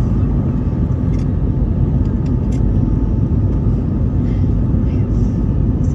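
Steady low rumble of jet engine and airflow noise inside the cabin of an Airbus A320neo climbing out after takeoff, with a faint steady whine above it and a few faint clicks.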